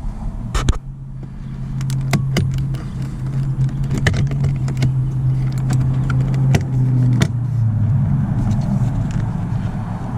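Sharp plastic clicks and snaps of car interior trim pieces and clips being handled and pried loose. They sound over a steady low hum that drops slightly in pitch about seven seconds in.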